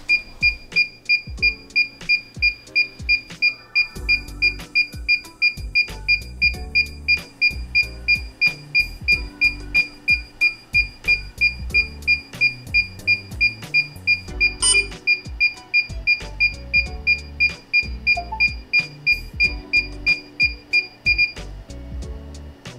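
A DJI FPV Remote Controller 2 beeping steadily in pairing mode, a short high beep about two and a half times a second, over background music. The beeping stops shortly before the end, the sign that pairing has completed.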